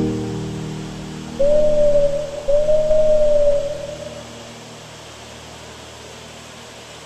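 The last chord of the music track dies away, then two long, smooth whistle-like tones, each sliding up at its start, sound one after the other about a second and a half in. A steady hiss is left after them.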